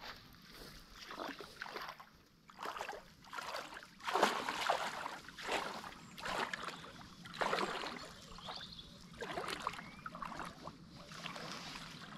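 Lake water splashing in irregular surges as a person swims, loudest about four seconds in and again about seven and a half seconds in.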